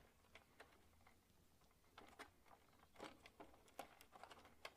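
Faint, scattered clicks and light taps of plastic connectors and wires being handled on a tumble dryer's control circuit board.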